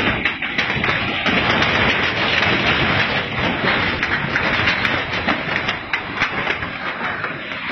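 Loud, continuous roar of a tsunami surge, rushing and breaking water, with many sharp cracks and knocks through it.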